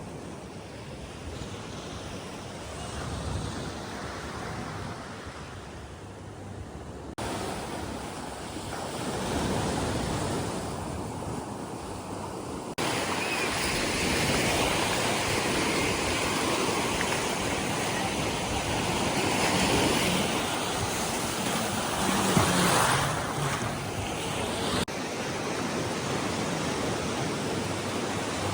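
Ocean surf washing onto a sandy beach, with wind buffeting the microphone. The loudness jumps abruptly three times.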